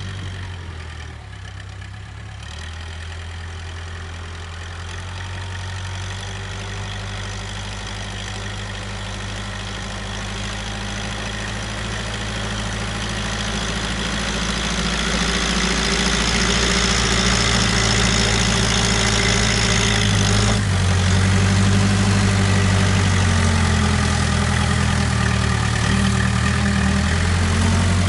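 Case 580K backhoe's four-cylinder diesel engine running under work, its pitch shifting as the throttle changes. It grows louder through the middle and stays loud near the end, with a high hiss for a few seconds before about two-thirds of the way in.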